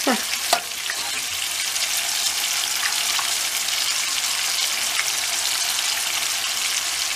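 Raw meatball patties frying in hot oil in a frying pan: a steady sizzling hiss, the patties freshly put in and still raw on top. A couple of short clicks sound right at the start.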